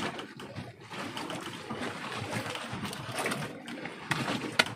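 Knives cutting and scraping through tuna flesh on a wooden deck, with a few sharp knocks of blade on wood near the end, over a steady rushing noise.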